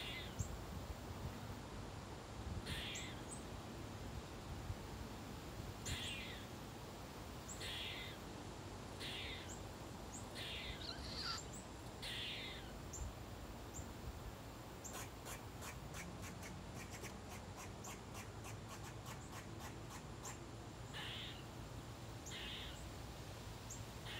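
Gray squirrel alarm calling at a cat: short raspy calls repeated every second or two, with a fast run of clicks, about five a second, lasting some five seconds past the middle.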